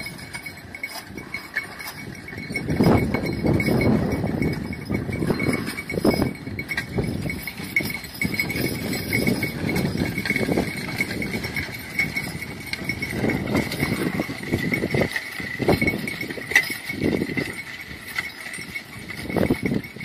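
Draft horses pulling a plow through soil: irregular hoof falls and plow noise, with metal clinking from the harness and plow.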